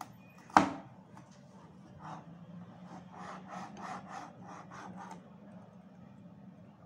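Cleaver chopping bell peppers on a cutting board: one sharp knock about half a second in, then a run of about ten lighter chops, two to three a second, from about two seconds in to five.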